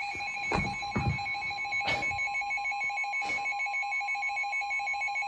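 NOAA Weather Radio alert signalling a new warning: a steady electronic tone with a rapidly pulsing trill-like alarm layered over it, both cutting off near the end. A few short knocks sound in the first two seconds.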